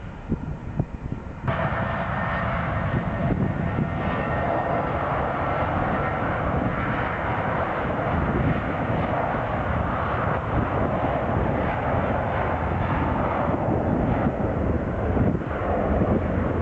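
Airliner engines running loud and steady as an aircraft passes, the sound starting abruptly about a second and a half in.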